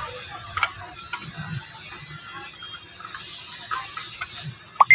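Light plastic clicks and knocks from a car fog lamp housing and its bulb socket being handled and fitted, with a sharper click near the end.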